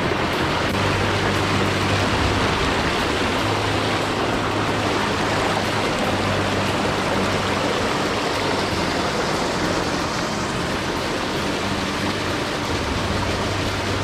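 Rushing mountain stream water, a steady loud hiss, with background music holding low sustained notes underneath that change every few seconds.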